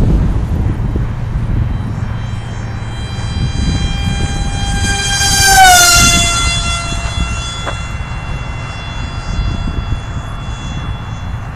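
High-pitched whine of a 4-foot RC flying wing's 700-watt electric motor and propeller at speed. It grows louder as the wing passes close, then drops in pitch about halfway through and carries on lower as it flies away. Wind rumbles on the microphone underneath.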